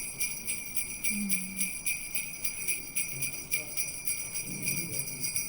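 Sleigh bells jingling in a steady, even rhythm, as in a Christmas backing-music track.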